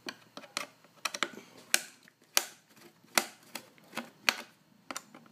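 Irregular sharp clicks and taps of hard plastic, about a dozen, spaced unevenly: the plastic case of an HP tm2 laptop being pried and worked open by hand.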